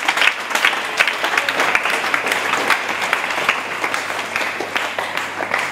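Church congregation applauding, many hands clapping together, easing off slightly near the end.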